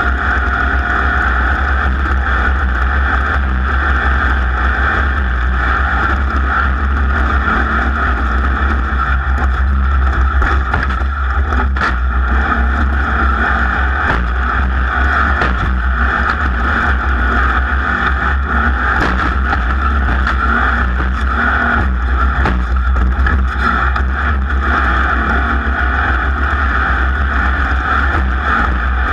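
Off-road race vehicle's engine running hard at speed, heard from on board, with occasional knocks and rattles from the rough course.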